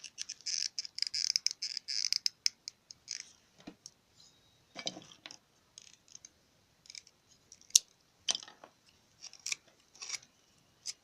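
Small parts and hand tools handled while a tuft is fitted into a turned wooden nambu call: a dense patch of scraping and rattling over the first two seconds or so, then scattered sharp clicks and light knocks.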